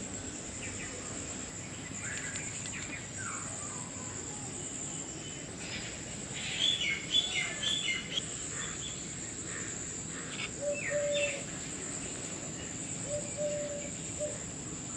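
Birds chirping over a steady high-pitched insect drone, the chirps coming in clusters about six to eight seconds in and again around eleven seconds.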